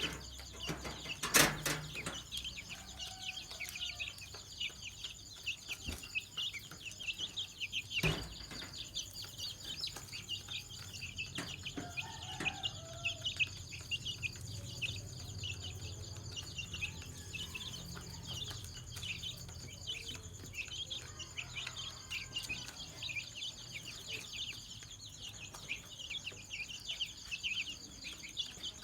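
Domestic chicken chicks peeping in a dense chorus of short, high chirps, many a second, with no letup. A sharp knock cuts through about a second in, and another comes around eight seconds.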